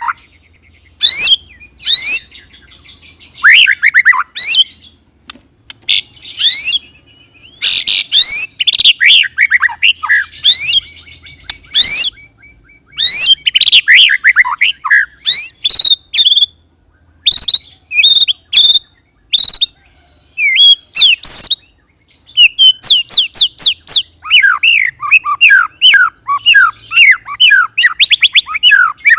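White-rumped shama (murai batu) singing in loud bursts of rapid whistled notes, with short pauses between phrases. Near the end it breaks into a long, fast run of quick falling notes, the rolling song used to provoke other shamas to answer.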